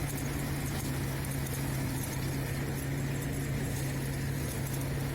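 Paddy threshing machine running steadily with a constant low hum, separating the rice grain from the straw.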